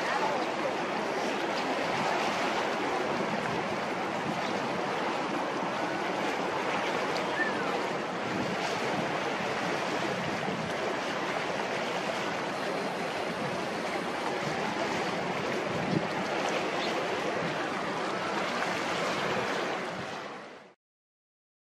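Steady wash of harbour water with some wind, which fades out to silence near the end.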